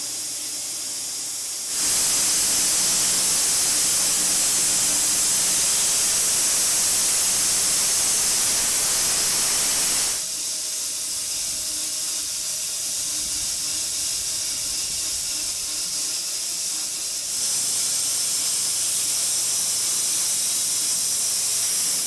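Shop-built wide-cut bandsaw mill running, its blade sawing through an elm log: a steady hissing whir over a faint electric-motor hum. The sound jumps louder about two seconds in, drops back abruptly about ten seconds in and steps up again near the three-quarter mark.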